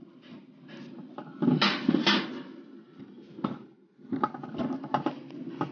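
Alpine coaster sled running along its metal track: a steady low rumble from the wheels, with repeated clacks and knocks and a couple of louder rattling spells.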